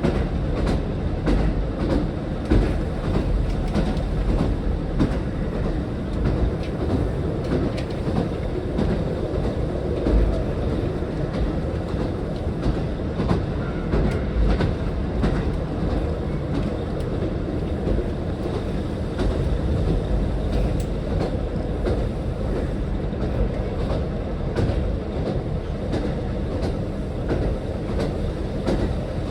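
Diesel train running steadily on the non-electrified Nemuro Line: a low rumble with the clickety-clack of wheels passing over rail joints.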